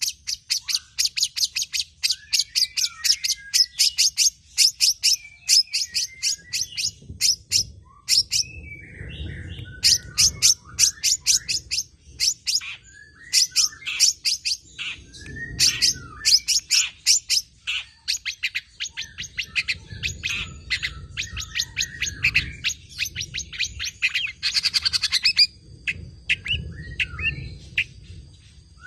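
Long-tailed shrike singing: fast runs of sharp, high chips delivered in rapid-fire bursts, the 'nembak' style, broken up by short warbled phrases.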